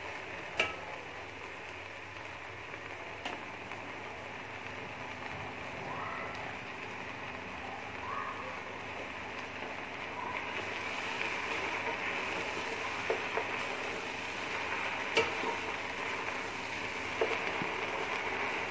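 Mutton frying in oil in a pressure cooker: a steady sizzle that grows slightly louder in the second half as the meat is browned. The stirring spoon knocks sharply on the pot a few times.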